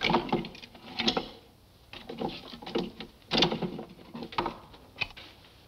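Shotgun being loaded and worked into a wooden rack: a string of about six knocks, clicks and scrapes with short gaps between them.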